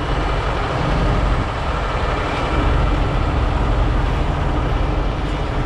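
Heavy-duty diesel engines of rotator tow trucks running steadily, a deep continuous drone with no change in pitch.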